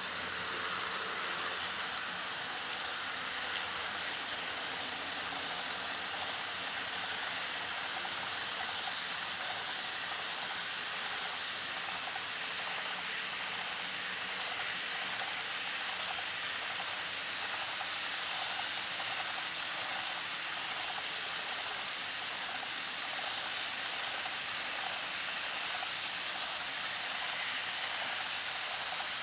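HO-scale model freight train rolling past on a trestle bridge: a steady, even rushing noise of many small wheels running over the rails.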